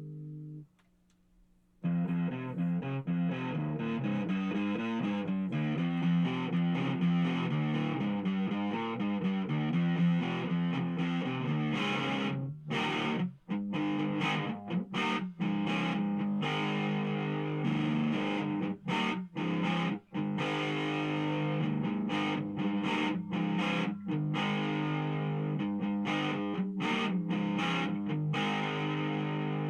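Electric guitar played through a homemade distortion pedal. A held chord cuts off, and after about a second's gap comes a fast run of notes, then chords broken by short stops, ending on a held chord.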